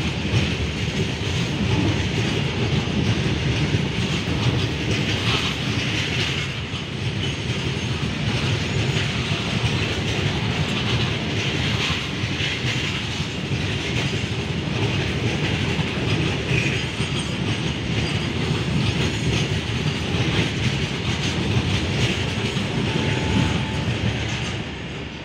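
Freight train of covered goods wagons rolling past at close range, wheels clattering over the rails. The sound drops away near the end as the last wagon clears.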